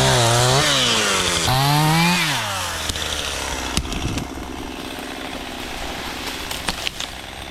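Chainsaw running at high revs, its pitch dipping and rising twice. After about two and a half seconds the clear engine note gives way to a quieter, rougher sound with a few sharp cracks near the end.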